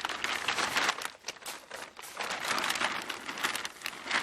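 Kayak sail cloth being handled, crinkling and rustling with a dense run of small crackles, dipping briefly about a second and a half in.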